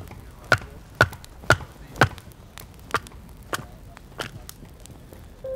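Firewood being split on a chopping block: a series of sharp wooden strikes about twice a second, the loudest five in the first two seconds, followed by lighter, irregular taps.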